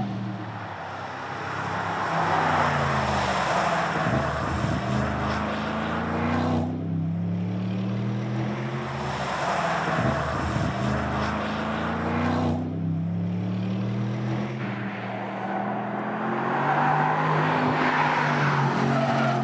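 Sports sedan's engine accelerating hard, its pitch climbing through each gear and dropping back at the shifts and throttle lifts.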